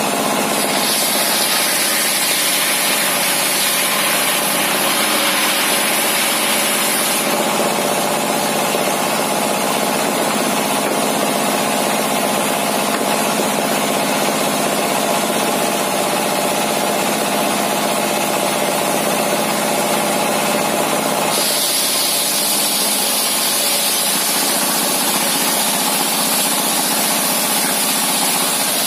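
A homemade table circular saw driven by a single-cylinder diesel (dompeng) engine, running steadily throughout. From about a second in to about seven seconds, and again from about 21 seconds on, the disc blade cuts through a large timber slab, adding a high hiss over the engine.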